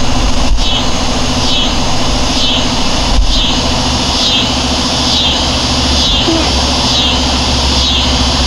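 Steady low rumble, with a high chirping that repeats about twice a second.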